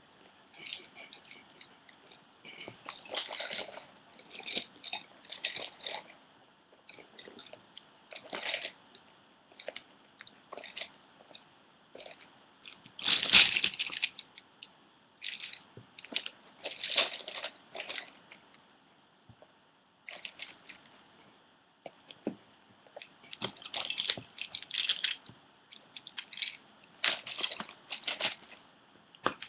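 Felt-tip pens and colouring pencils clicking and rattling against each other as they are picked through and moved about by hand, in irregular bursts, with the loudest clatter about 13 seconds in.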